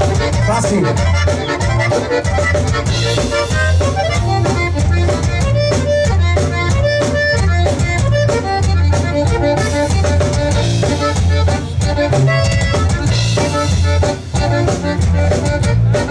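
Conjunto band playing: accordion melody over bass guitar and drum kit, with a steady beat and cymbal strokes.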